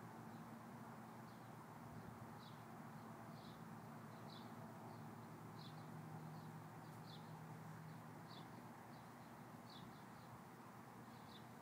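A small bird chirping faintly: short high chirps, irregular but about one a second, over a faint steady low hum.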